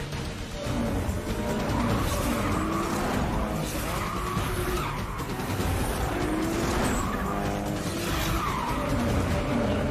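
Sports cars drifting, with engines revving up and down and tyres squealing, mixed over background music as a film chase soundtrack.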